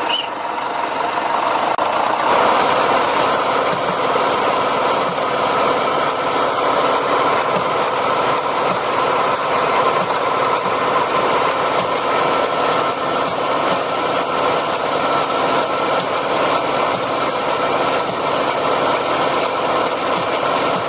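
Diesel engine of a heavy forestry or earth-moving machine running steadily, growing louder and fuller about two seconds in.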